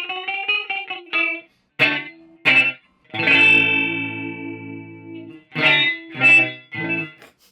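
Electric guitar played through the Earthquaker Devices × Death by Audio Time Shadows effects pedal: a few short chord stabs, then a chord held for about two seconds, then three more short stabs.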